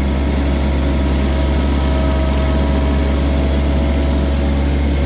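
John Deere 1023E compact tractor's three-cylinder diesel engine running steadily.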